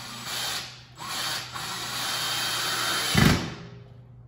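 Cordless drill driving a long screw into the back of a flat-pack kitchen drawer box. It runs in two spurts with a short break just before a second in, then stops with a heavy thump a little over three seconds in.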